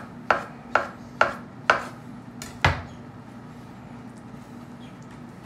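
Kitchen knife chopping on a cutting board: five sharp strokes, about two a second, stopping a little under three seconds in.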